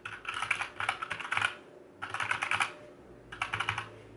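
Keys of a Redragon Draconic K530 mechanical keyboard being typed on in three quick runs of clicks. Not that loud.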